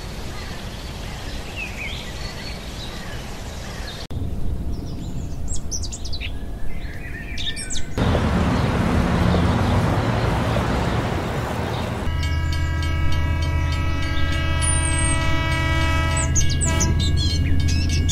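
Edited ambience that changes abruptly every few seconds: birds chirping over a steady hiss, then a stretch of even noise, then from about twelve seconds a steady low train drone made of several tones, with birds still chirping above it.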